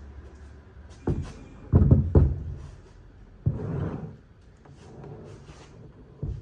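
A series of dull knocks and thuds: one about a second in, two heavy ones just before and after two seconds, a longer rough scraping knock at about three and a half seconds, and a short one near the end.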